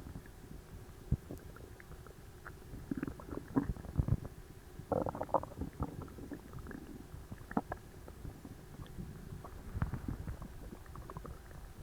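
A human stomach gurgling and rumbling while digesting a very large meal, an overstuffed, tight gut. It is an irregular run of short gurgles and pops, busiest around the middle.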